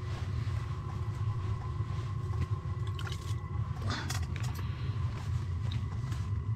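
Hands pulling fishing line up through an ice hole and landing a whitefish, heard as sleeve rustling and a few soft knocks about three to four seconds in, over a steady low rumble.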